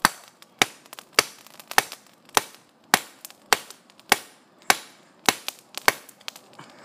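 Hand hammer striking red-hot rebar on a half-inch mild steel plate used as an improvised anvil, forging the bar. Twelve sharp, ringing metal blows at a steady pace of nearly two a second.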